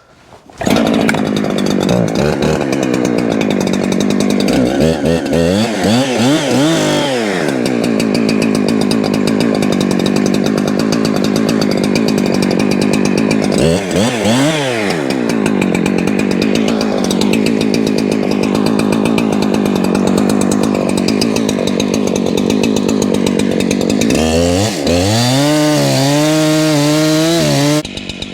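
Husqvarna gas chainsaw cutting at full throttle, its pitch dipping and revving back up twice. It drops to a lower, wavering speed near the end.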